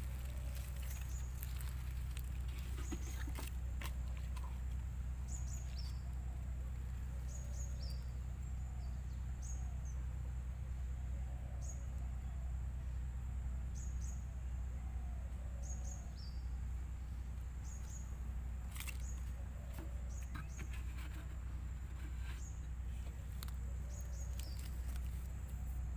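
Outdoor ambience: a steady low rumble under repeated short, high-pitched chirps from a small animal, every second or two, with a few soft clicks.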